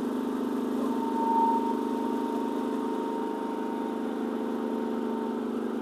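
Genmax 9000 inverter generator running steadily under a food truck's heavy electrical load, with a faint steady high whine above the engine hum.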